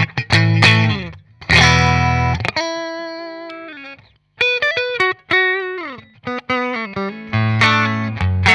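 Electric guitar played through a Fender '65 Deluxe Reverb tube amp, miked with a Shure SM58. Loud strummed chords at the start and again near the end, and between them a single-note melody with bends and vibrato after a short break about four seconds in.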